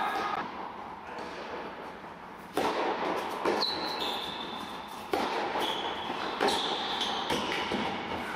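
Tennis rally: sharp racket-on-ball strikes about every second to second and a half, starting about two and a half seconds in, echoing in a large indoor hall, with short high squeaks from shoes on the court.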